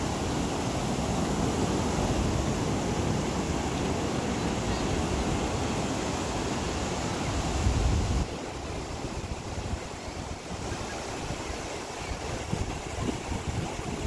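Ocean surf breaking and washing up a sandy beach, with wind rumbling on the microphone. The sound drops suddenly about eight seconds in.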